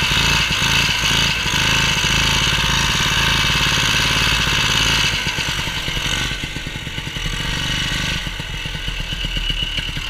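Vintage snowmobile's two-stroke engine running under the rider, heard from the seat. About halfway through the throttle eases off and the engine drops to a slower, lower putter as the sled rolls in.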